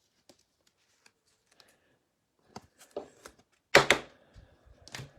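Trading cards and packs being handled on a table: light clicks and taps after a quiet start, with a sharp knock nearly four seconds in and two more near the end.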